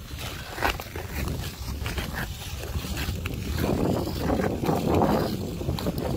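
Ice skate blades scraping and gliding over outdoor ice: a steady hiss like white noise, broken by short scrapes of the strides, over a low rumble of wind on the microphone. The hiss grows louder about halfway through.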